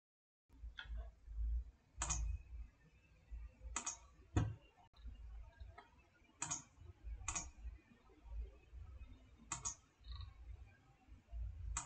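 Computer mouse clicking, single and double clicks every second or two, over a faint low rumble.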